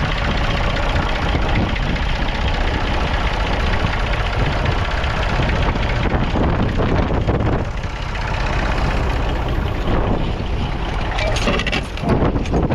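A 1963 Massey Ferguson 35X tractor's 2.5-litre three-cylinder diesel engine running steadily.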